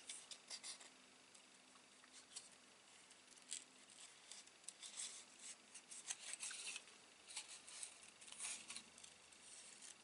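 Small craft scissors snipping paper, fussy-cutting closely around a printed image: faint, short snips at an irregular pace.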